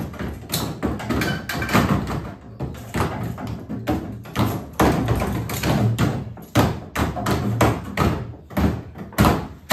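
Hammer blows on a car's sheet-steel rear quarter panel and wheel arch, about two sharp strikes a second in an even rhythm, as the dented panel is beaten back into shape.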